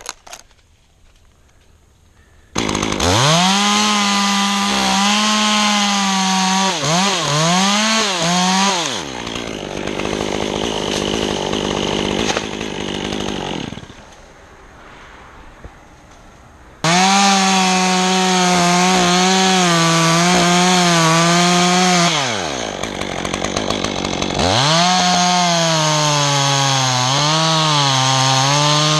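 Two-stroke chainsaw revved to high speed, its pitch sagging and wavering as it bogs under load in a cut. It is let back down twice, then revved up again about 17 and 24 seconds in.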